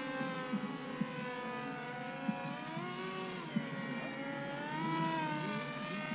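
Electric motor and propeller of an R/C plane whining, the pitch falling and rising several times as the throttle changes, loudest about five seconds in.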